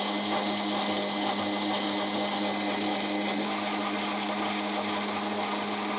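Countertop blender motor running at a steady speed with a constant hum, puréeing blanched nettle leaves in broth into a smooth liquid soup.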